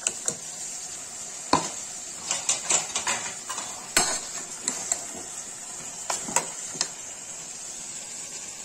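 Metal ladle stirring and scraping in an aluminium pressure cooker, knocking against the pot in irregular clatters. Under it runs a steady sizzle of tomatoes frying with potatoes in oil.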